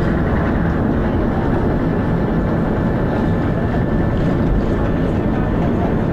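Dennis Arrow double-decker bus running: steady engine and road noise, heavy in the low end, with no single knocks standing out.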